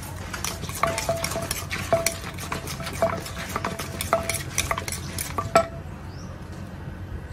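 Papaya salad being pounded and tossed in a clay mortar: a wooden pestle knocks and a metal spoon scrapes and clinks against the mortar, about three knocks a second, some clinks ringing briefly. The knocking stops with a last, loudest knock about five and a half seconds in.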